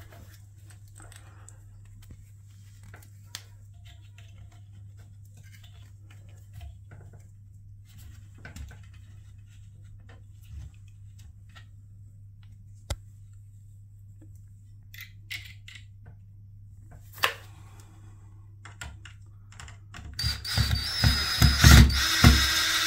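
Cordless drill driver driving a screw into a brass shower wall plate, running loudly in short bursts with a high motor whine near the end. Before that there are only faint clicks and handling taps.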